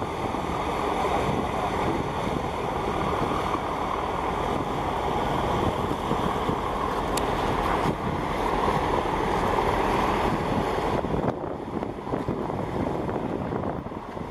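Steady wind buffeting the microphone over a rush of choppy harbour water and waves, with a low rumble underneath; the top end thins out a little about eleven seconds in.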